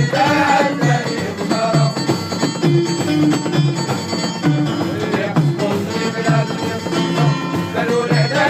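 Live music from an informal session, with a steady beat and a melody over it.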